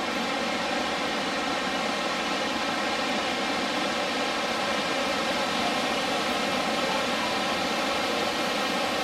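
Steady rushing noise of Niagara's Horseshoe Falls, water pouring into the misty gorge below.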